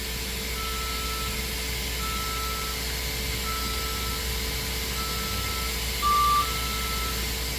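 DMG MORI CNC machine beeping: a short steady beep repeats about every one and a half seconds over the machine's steady hum. One louder, slightly lower beep sounds about six seconds in.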